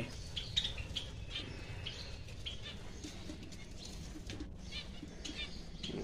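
Aviary birds chirping: short, high chirps scattered through, over a low background rumble.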